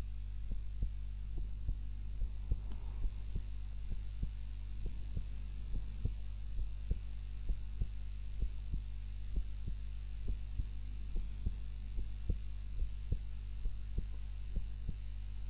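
A sleeping woman's heartbeat picked up at the chest while she lies on her back: a steady, even rhythm of paired lub-dub beats over a constant low hum.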